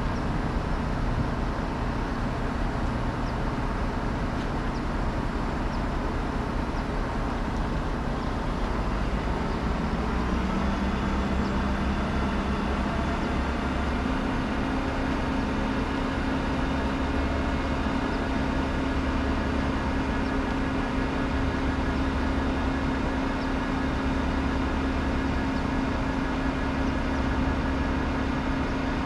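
A truck engine running steadily throughout. About ten seconds in a steady hum joins it and rises a little in pitch, then holds on to the end.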